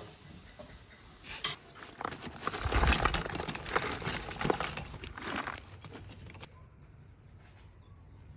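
Lumps of charcoal tipped from a plastic scoop into a clay-lined bucket stove, clattering and knocking against each other and the clay for several seconds. The clatter stops abruptly a little past halfway, leaving only faint background sound.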